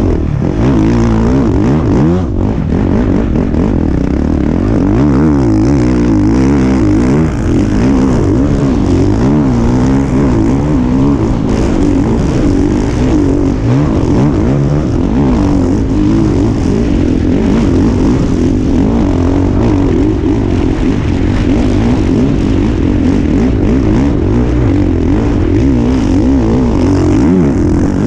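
Motocross bike engine revving up and down continuously as it is ridden through deep sand ruts, its pitch rising and falling with the throttle.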